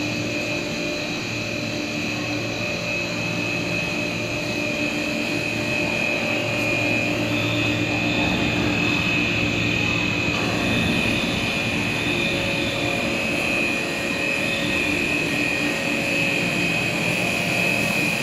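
Cast stretch film extrusion line running: the electric drive motors and gearboxes of its screw extruders give a steady mechanical hum with an even high whine over it, growing a little louder partway through.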